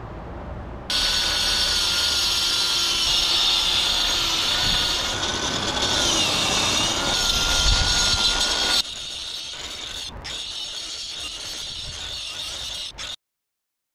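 Angle grinder running and cutting into the brick chimney's mortar joint to make the chase for lead step flashing. Its whine dips in pitch around the middle as the disc bites, then the sound drops to a lower level about two-thirds through and stops shortly before the end.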